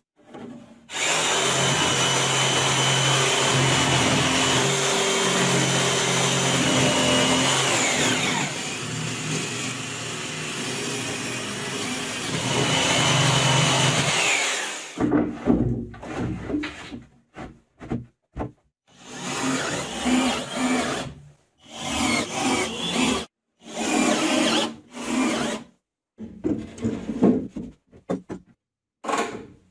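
DeWalt jigsaw cutting through a shelf board, running steadily for about thirteen seconds and stopping about fourteen seconds in. After that comes a string of short separate work noises, each a second or two long with pauses between.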